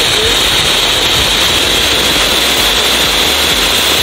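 Cat brand Colour Koti Deluxe flower pot, a ground fountain firework, spraying a tall column of sparks with a loud, steady hiss.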